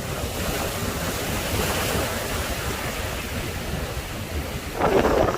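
Sea waves washing and breaking, with wind buffeting the microphone in a low rumble; a louder rush of water and wind comes near the end.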